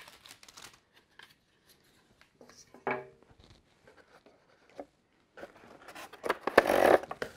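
Handling noise from unpacking plastic playset parts: paper wrapping rustling as it is pulled off, with light rubbing and knocks of parts and cardboard. The loudest rustling and scraping comes about six and a half seconds in, as hands dig into the cardboard box.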